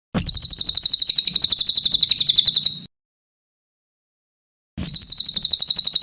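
Cililin songbird singing a rapid, high trill of sharp repeated chirps, about a dozen a second. It comes in two bursts: one of about two and a half seconds, then a pause, and a shorter one near the end.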